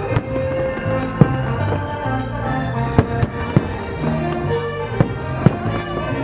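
Fireworks shells bursting in sharp bangs, about half a dozen of them, the strongest about a second in, over the fireworks show's soundtrack music.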